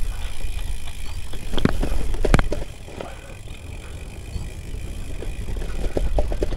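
Gravel bike rolling along a dirt singletrack, its tyres on the trail and the frame rattling over bumps, with a low rumble of wind on the handlebar-mounted camera's microphone. A few sharp knocks come about two seconds in, then the noise drops briefly and builds again.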